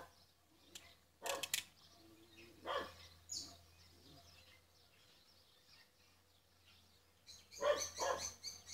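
A dog barking several times: single barks about a second in and near three seconds, then a quick run of barks near the end.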